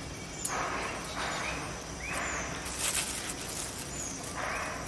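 A hand working maida flour into boiled, crumbled sweet potato in a steel bowl: about four soft rustling strokes, each about half a second long.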